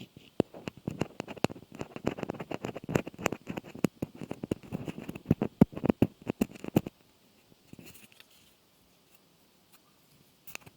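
Rapid, dense tapping and scratching close to the microphone for about six seconds, then stopping, with only a few faint ticks after.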